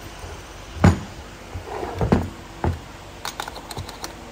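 A few dull knocks of a heavy A/C compressor being moved and set down on a workbench, the loudest about a second in, followed by a run of light clicks near the end.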